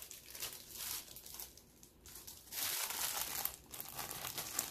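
Clear plastic wrap around a mouse pad crinkling as it is pulled from its package and handled, easing off for about a second in the middle and picking up again after.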